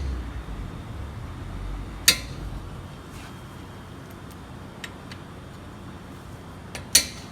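Sharp metallic clicks and clinks of a 17 mm wrench on the front brake caliper bolts as they are broken loose: one loud click about two seconds in, a few faint ticks, then two quick clicks near the end.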